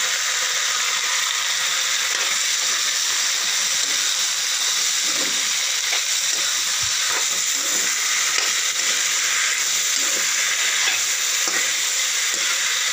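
Sliced gourd and potatoes sizzling steadily in hot oil in a pan, with a few light scrapes of a spatula as they are stirred.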